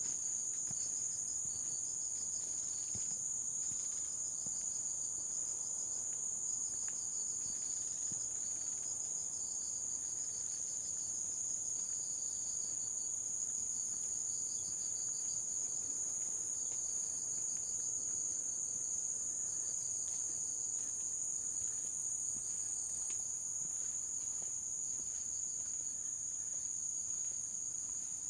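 Chorus of insects in the forest: a steady high-pitched ringing that never lets up, with another insect's rapid pulsing trill coming and going just below it. Faint footsteps on the trail tick underneath.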